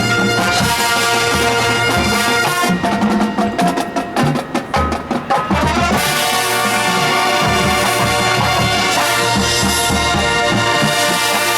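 High school marching band playing: held brass chords over drums, then a drum break of about three seconds where the percussion plays alone in rapid strokes, then the full band with brass comes back in.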